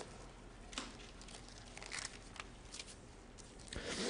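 Thin pages of a Bible being turned by hand: a few soft, short rustles.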